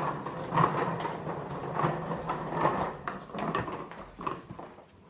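A Trunki ride-on suitcase, a hard plastic case on small plastic wheels, pulled along by its strap, rolling and rattling over a wooden floor with scattered knocks. The sound grows fainter near the end as the case reaches a rug.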